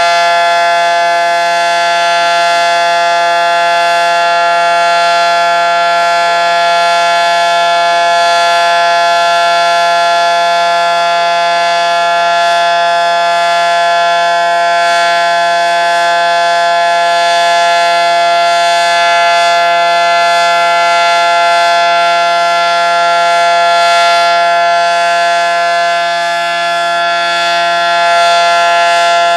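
Federal Signal SD-10 dual-tone electromechanical siren sounding a steady chord at full speed, its pitch held level, on a routine monthly test.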